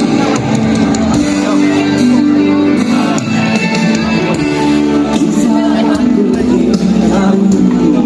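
Live rock band music with electric guitar and a singer, loud and steady, with some crowd shouting mixed in.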